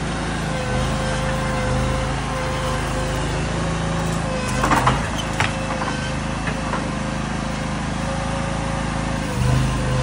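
Small engine of a stand-on mini tracked skid steer running steadily under a steady whine as the machine drives, with a brief clatter about halfway through; the engine gets louder near the end.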